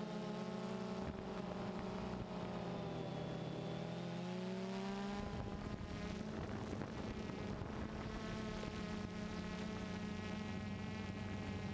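Quadcopter drone's electric motors and propellers whining steadily in flight, the pitch gliding up and down with throttle changes and shifting abruptly about five seconds in.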